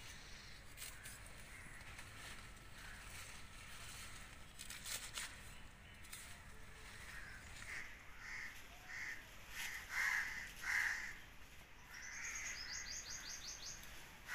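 A crow cawing about seven times in a row in the second half, the last calls the loudest, after rustling and crackling of leafy stalks being cut and handled. Near the end a small bird gives a short, rapid, high trill.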